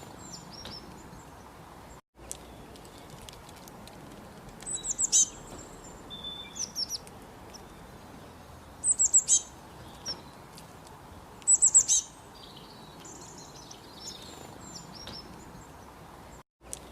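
Small birds chirping: three loud runs of quick, high, falling chirps, each about half a second long and roughly three and a half seconds apart, with softer chirps in between, over a steady background hiss.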